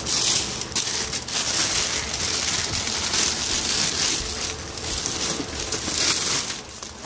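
Loud, rushing rustle of something rubbing right against the phone's microphone, swelling and fading unevenly.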